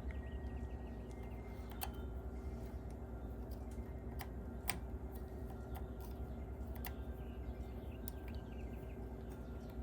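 A few light clicks as a small screwdriver works at a tuning knob's set screw, over a steady low hum.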